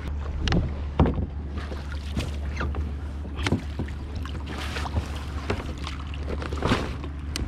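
Paddle strokes dipping and splashing in seawater from a small paddled boat, coming irregularly about once a second, over a steady low wind rumble on the microphone.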